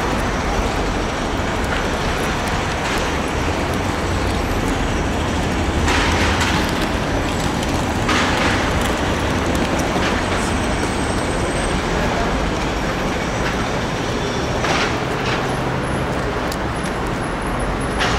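Steady road traffic noise of cars and trucks running and passing, with a low rumble and a few short hisses.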